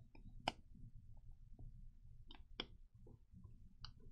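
Faint, scattered clicks of an anodized aluminium beadlock ring and wheel knocking together as the ring is pressed and worked over an RC crawler tire's bead, a handful of light metal taps.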